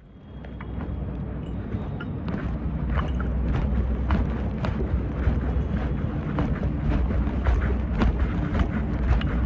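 Royal Enfield Hunter 350's single-cylinder engine running with a steady low thump, fading in over the first second, with scattered sharp clicks through it.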